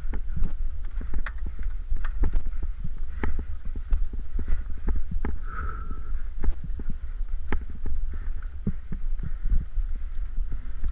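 Mountain bike clattering over a rough dirt trail: rapid, irregular knocks and rattles from the bike over bumps above a constant low rumble of wind and vibration on the action camera's microphone. There is a short squeak about halfway through.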